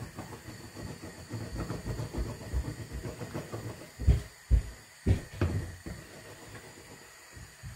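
Sugar syrup boiling with semolina rasgullas in a pot on the stove: an irregular low bubbling, with a few louder thumps between about four and five and a half seconds in.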